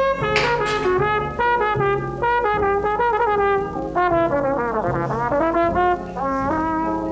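Jazz music with a brass lead playing a melody with sliding, bending notes over a low bass line.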